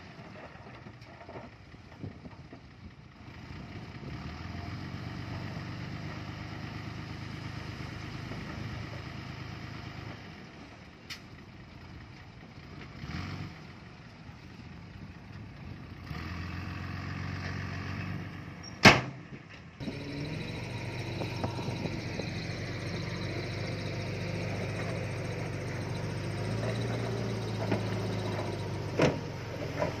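Diesel engines of earthmoving machines (dump truck and bulldozer) running under load, their drone growing louder and fading as they work. A loud sharp clank comes about two-thirds of the way through, and a smaller one near the end.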